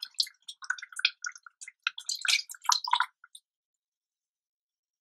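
Milk being poured into and mixed with a thick ground coconut and poppy-seed paste in a saucepan: soft, irregular wet squishing and dripping for about three seconds.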